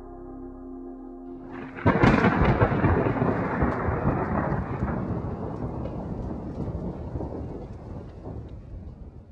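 A held ambient music chord breaks off about two seconds in, and a sudden loud thunderclap takes over, rumbling and slowly fading away.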